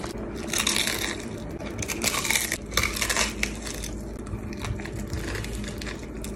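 Crispy fried chicken skin crunching as it is bitten and chewed, in several crackly bursts over the first three and a half seconds, then softer chewing.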